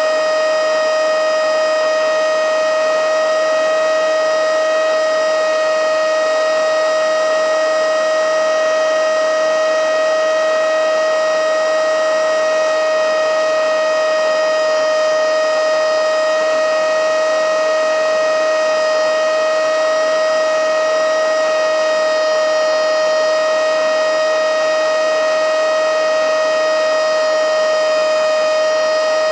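Handheld cordless mini vacuum cleaner (blower/suction type) running continuously at full power: a loud, steady, high-pitched motor whine over a rush of air, holding one pitch.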